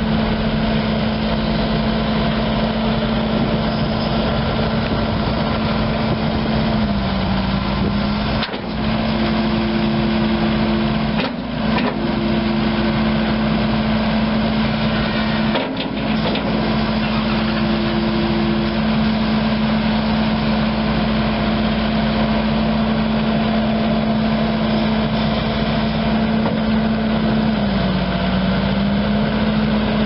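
Kubota SVL75-2 skid steer's four-cylinder turbo diesel (Kubota V3307) running steadily at high revs. Its pitch sags briefly twice, there are three short dropouts in the middle, and the revs fall right at the end.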